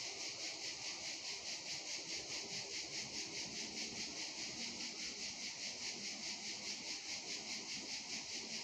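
Insects chirping in a steady, high-pitched chorus that pulses evenly, about four pulses a second.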